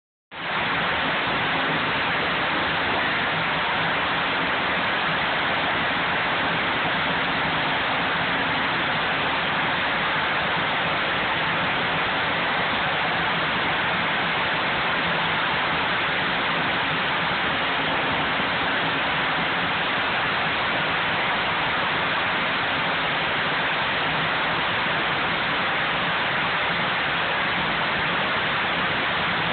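Sawmill headrig machinery running steadily: a constant, dense mechanical noise from the log rolls, saws and hydraulics, with a faint low hum underneath.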